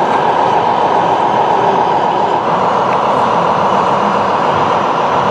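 Radio-controlled model truck machinery running: a steady, loud mechanical whir of electric motors and gearing with a constant whine.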